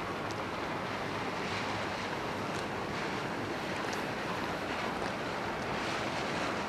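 Steady rushing and churning of river water stirred up by a small sightseeing boat's wake, with a few faint ticks.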